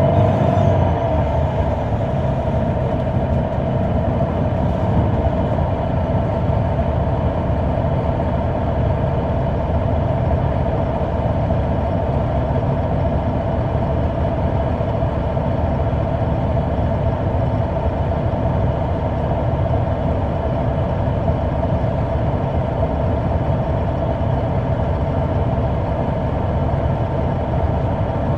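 A 2004 Neoplan AN459 articulated bus's Caterpillar C9 ACERT inline-six diesel running steadily, heard from inside the bus: a deep rumble with a steady high whine over it.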